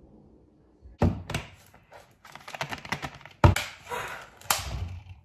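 Phone being handled and set in place close to its microphone: a run of taps and knocks starting about a second in, the loudest about three and a half seconds in.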